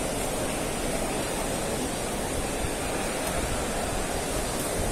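Steady, even rushing noise with no distinct events or voices standing out.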